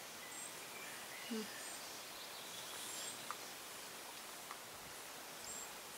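Faint outdoor ambience: a steady hiss with scattered faint, high bird chirps and a couple of small clicks.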